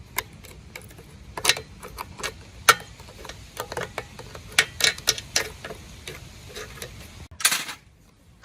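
Irregular sharp clicks and taps of hand tools and metal engine parts being handled, some louder knocks among them, over a faint low hum that stops about seven seconds in.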